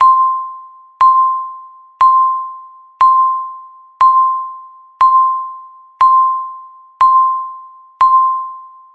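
Electronic countdown timer beep: a single-pitched ding sounding once a second, each striking sharply and dying away before the next, nine in all.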